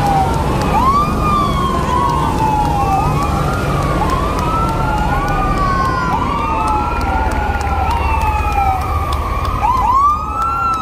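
Sirens on slowly passing emergency vehicles, each sweep rising quickly and falling slowly about once a second, two or more sirens overlapping out of step. Vehicle engines rumble underneath.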